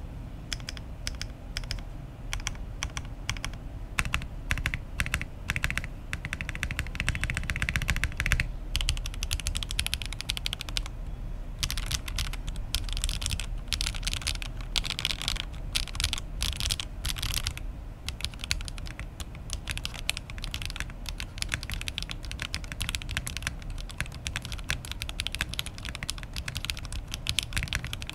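Oasis 65 custom mechanical keyboard on a PC plate being typed on continuously, a steady stream of quick keystroke clicks in a typing sound test. Fitted with foam, it sounds very tight, with the hollow ring gone.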